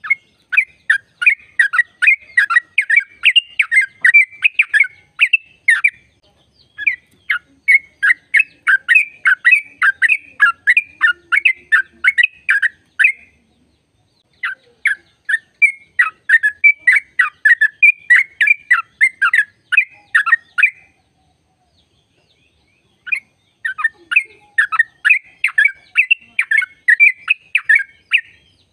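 Yellow-vented bulbul (trucukan) singing its rapid 'ropel' song: long runs of short, sharp chirping notes, about four a second, in four phrases with brief pauses between them.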